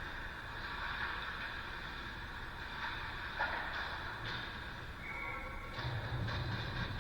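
Engine running steadily, with a few short sharp clicks over the top; the engine is one being checked for a misfire.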